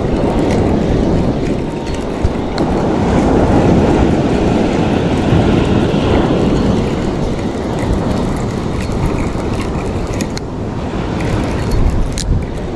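Wind buffeting the microphone over surf breaking on the beach, a steady low rumble of noise. A couple of sharp clicks near the end, from the phone being handled.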